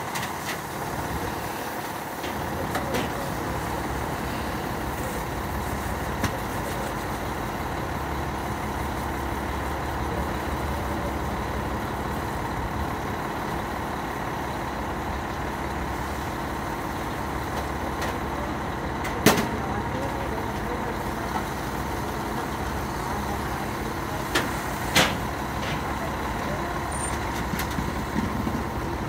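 Fire engine's diesel engine idling steadily beside the curb, a constant low hum with a few held tones over it. A few sharp metal knocks cut through, the loudest about nineteen seconds in and two more near the end.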